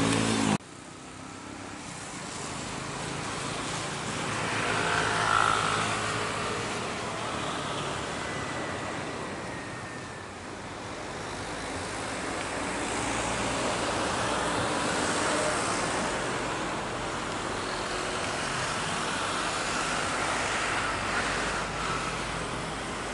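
Boeing 737-800 jet engines on final approach and landing: a steady jet noise that swells and eases as the airliner passes, with a faint whine. Another jet's engine noise cuts off abruptly about half a second in, and the tyres touch down near the end.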